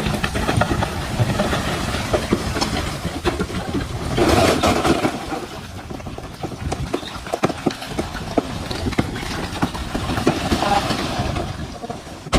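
DH17C3 bulldozer engine running under load, with the steady clanking of its steel tracks and knocks of stones as it pushes soil and rock. There is a louder rushing surge about four seconds in.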